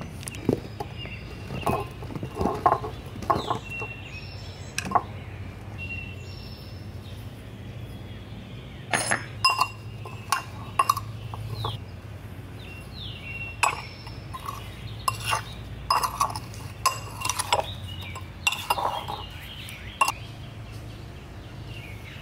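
Kitchen prep sounds: spoons and measuring cups clinking and tapping against glass and ceramic mixing bowls, a scattered series of separate clinks and knocks.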